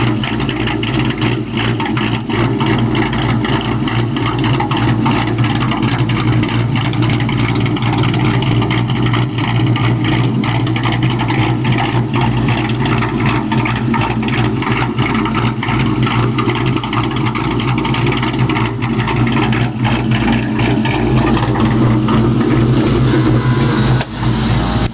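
A 2001 Ford Mustang GT's 4.6 L V8, fitted with an SLP Loudmouth exhaust and a ghost cam, idling steadily and loudly through the exhaust.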